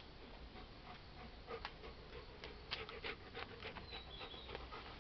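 An animal moving right up against the ground-level camera: a run of small, sharp clicks and ticks begins about a second and a half in and grows thickest toward the middle, as the animal brushes past it.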